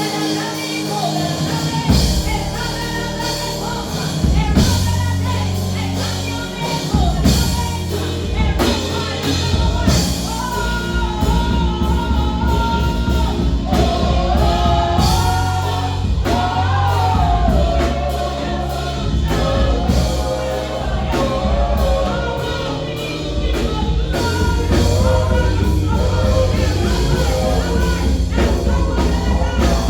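Gospel choir singing with a band backing them; the low accompaniment swells in about two seconds in.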